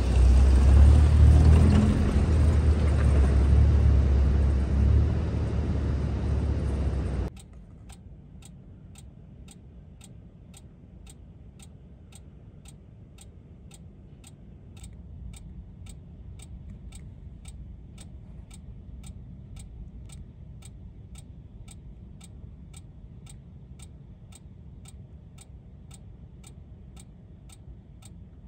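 A loud, uneven low rumble with a hiss of noise over it for about seven seconds, like wind buffeting the microphone. It cuts off abruptly to a quiet, even ticking about twice a second.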